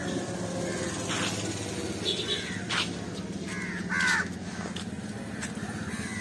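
Crows cawing several times, the loudest call about four seconds in, over a steady low hum.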